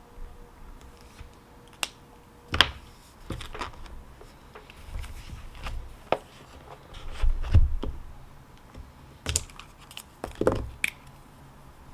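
Scattered sharp clicks and taps of small objects being handled on a desk, with a heavier low thump about two-thirds of the way through.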